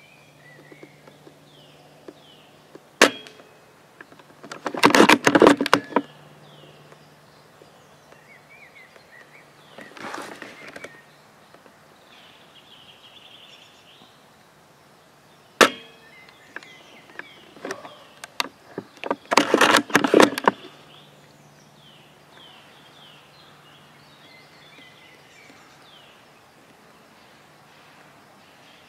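Spring-powered bolt-action airsoft sniper rifle (L96 type) firing twice. Each sharp shot is followed about a second and a half later by a clatter of the bolt being worked to re-cock it. Small birds chirp in the background.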